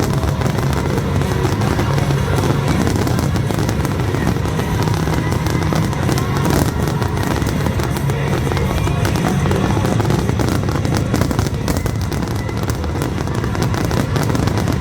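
Fireworks bursting in a dense, continuous barrage of bangs and crackle, over loud music.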